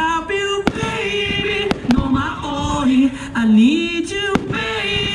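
Fireworks shells bursting with a few sharp bangs, about four, over a song with a sung vocal melody playing throughout.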